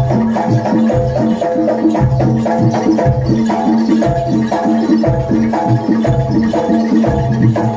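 Jaranan dor ensemble music: a fast, repeating pattern of struck pitched gamelan-style metal notes over steady deep drum beats.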